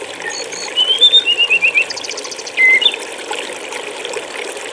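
Flowing stream water running steadily, with a small songbird singing over it: a quick run of falling chirps about a second in, then a fast trill and a short whistle.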